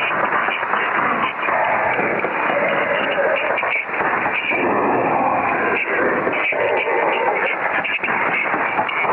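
Continuous dense din with indistinct voices mixed in, thin and muffled, with nothing above the upper midrange.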